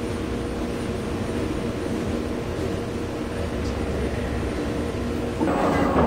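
Maytag Commercial Technology top-load washer spinning its basket during the factory diagnostic cycle: a steady motor hum over a low rumble, growing louder near the end.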